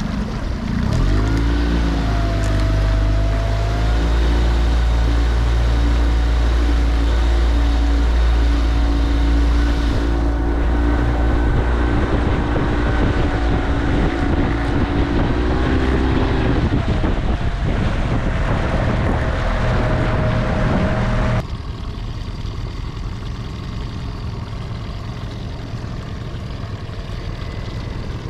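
A boat motor running steadily, its pitch easing up briefly near the start and again later. About three quarters of the way through, the sound drops suddenly to a lower, quieter drone.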